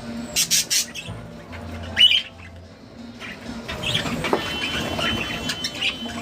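Pet lovebirds squawking and chirping in short, sharp calls, busier in the second half.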